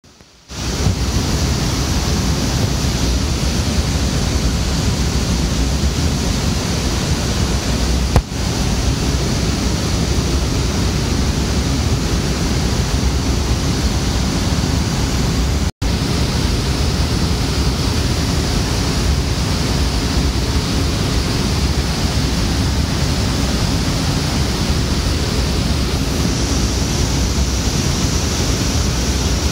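Steady, loud rush of data-centre cooling: server fans and air handling running, with one short click about eight seconds in.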